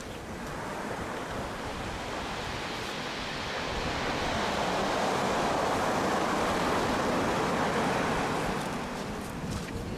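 Surf breaking and washing up a beach. A wave's rush swells about a third of the way in, holds, and falls away near the end.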